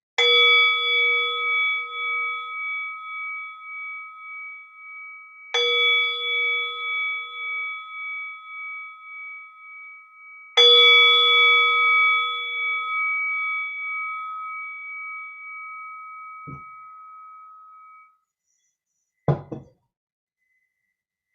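A meditation bell struck three times, about five seconds apart. Each strike rings out with a wavering, pulsing tone, and the last is left to fade away. It marks the end of the meditation sitting.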